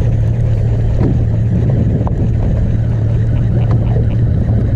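A boat's engine running steadily with a constant low hum, over water and wind noise.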